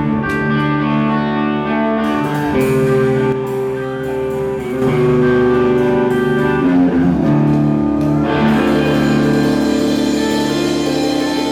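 Band music with guitar, sustained chords shifting every second or two.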